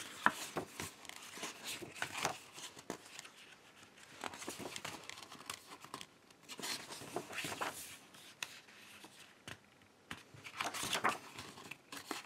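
Stiff glossy pages of a hardcover book being turned one after another: repeated paper swishes and rustles, with a sharp page snap near the start.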